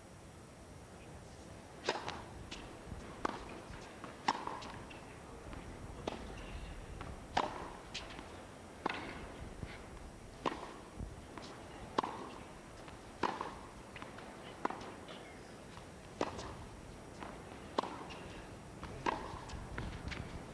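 Tennis ball struck back and forth with rackets in a long baseline rally on a hard court, a sharp pop of racket hit or ball bounce about every second and a half from about two seconds in.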